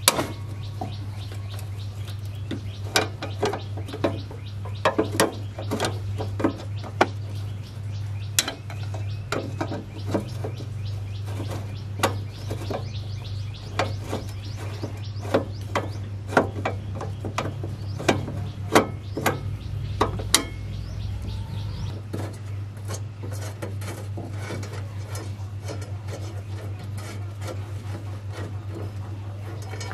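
Irregular metallic clinks and taps, as of hand tools on metal parts, over a steady low hum; the clinks thin out after about twenty seconds.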